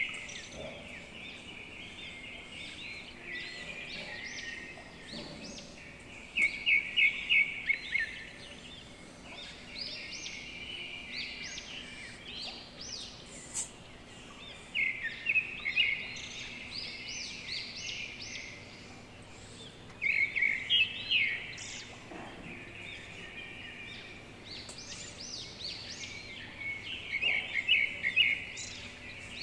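A bird singing in bursts every few seconds, each burst a quick run of high chirps.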